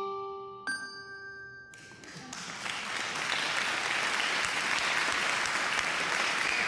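A bell chime rings once, dying away within about a second. A couple of seconds in, applause starts and carries on steadily.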